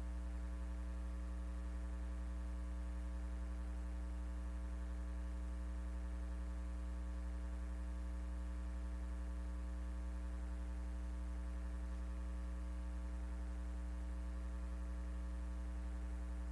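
Steady low electrical mains hum with a buzz of evenly spaced higher overtones and faint hiss, unchanging, with nothing else heard.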